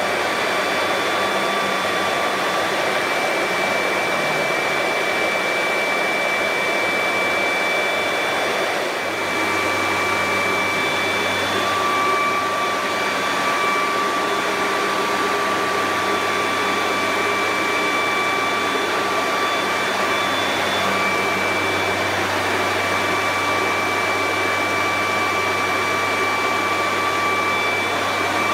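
Stone CNC router spindle milling a marble fountain bowl under water coolant: a steady high whine over a hiss, with a low hum coming in about nine seconds in.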